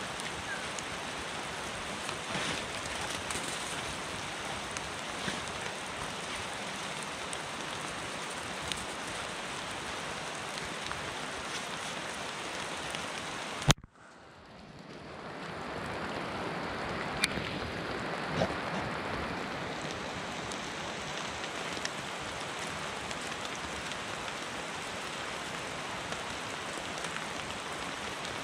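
Steady rain with scattered drips. A sharp click about halfway through, after which the sound cuts out and fades back in over a couple of seconds.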